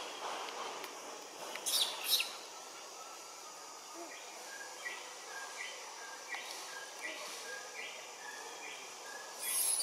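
Bird calling a short high note over and over, about twice a second, in the forest background. A couple of brief shrill calls stand out near 2 seconds in, and another comes just before the end.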